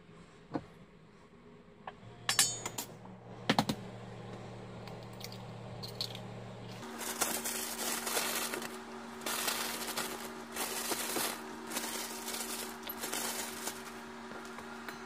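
Clinks and clattering in a stainless-steel mixing bowl as ingredients are added to marinated chicken, ending with frozen french fries tumbling in; a few sharp clicks early on, then a longer run of rattling. Partway through, a steady low hum comes in underneath.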